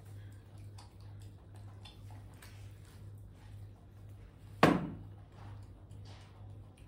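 One sharp knock about four and a half seconds in, ringing out briefly, over scattered small clicks and a steady low hum.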